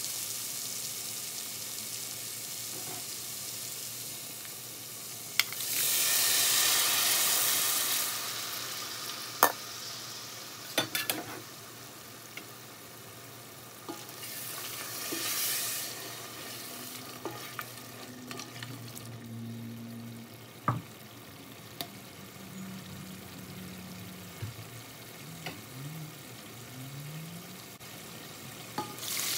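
Beef and chickpeas sizzling in hot oil in an aluminium pot while a spoon stirs them and clicks against the pot's metal side. The sizzle swells loudly about six seconds in and again, more briefly, near fifteen seconds.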